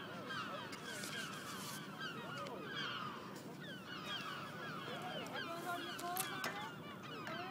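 A flock of birds calling, many short overlapping chirps and honks.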